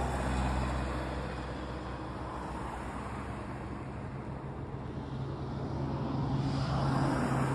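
Motorcycle engine running steadily under way, a low drone mixed with wind and road noise, swelling a little near the end.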